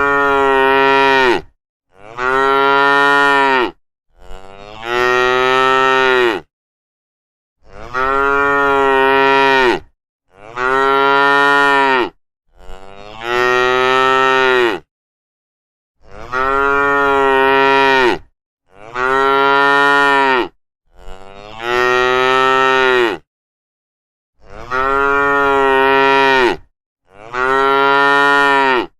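Domestic cattle mooing loudly: about a dozen long, drawn-out moos of around two seconds each, following one another mostly in groups of three, with brief silent gaps between.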